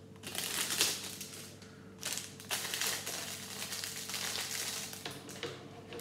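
Clear plastic Lego parts bag crinkling as it is torn open and handled. The two loudest bursts come in the first three seconds, then lighter rustling follows.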